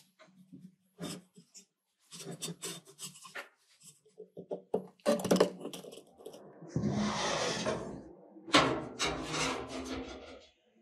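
Hand scraping and rubbing strokes in several short bouts. About two-thirds of the way in there is a longer continuous scrub, followed by more rapid strokes.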